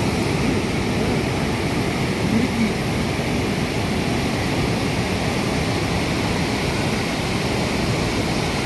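Heavy water released through a dam's sluice gates, rushing and churning with a steady, loud roar of noise.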